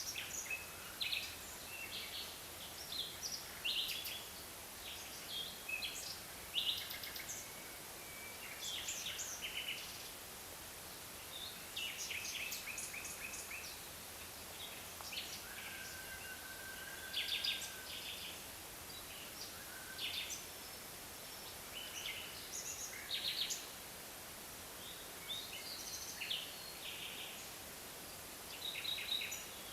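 Several songbirds calling, with frequent short chirps and trills and one longer whistled note about halfway through, over a faint steady hiss.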